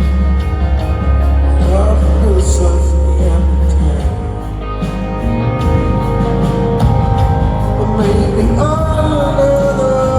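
Live rock band playing loud amplified music with drums, electric guitar and a male singer's vocal line. The heavy low bass drops out about four seconds in and comes back near the end.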